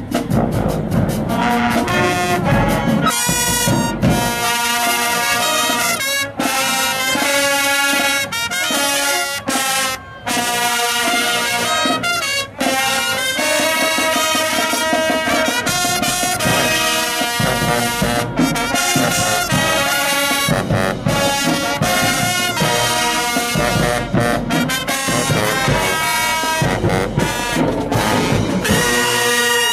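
Marching band brass section playing loud, punchy phrases, with sousaphones, trumpets and trombones, broken by a few sudden brief stops.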